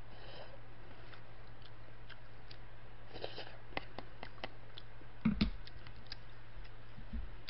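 Quiet eating sounds: chewing and small clicks of chopsticks against a paper instant-noodle cup. About five seconds in there is a single knock as the chopsticks are set down on the table, all over a steady low hum.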